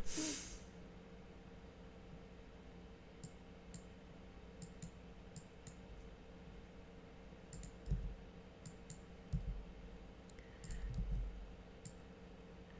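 Faint, irregular clicks of a computer mouse and keyboard as someone works at a desk, with a few soft low thumps in the second half.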